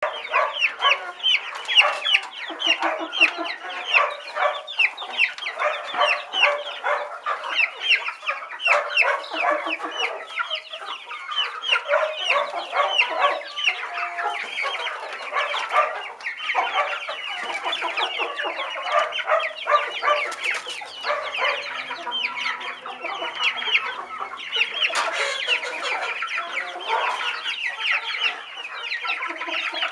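A flock of young chickens peeping together, a dense, continuous stream of short, high, falling chirps overlapping one another.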